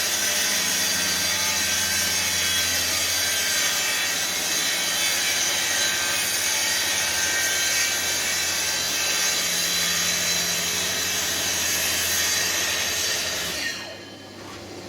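Festool TS 55 plunge-cut track saw running along its guide rail in one long, steady cut through sheet material, stopping near the end.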